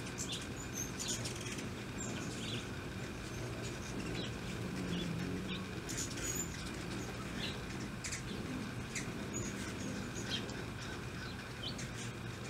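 Ruby-throated hummingbirds giving short, high chips scattered irregularly, several a second at times, over a steady low background rumble.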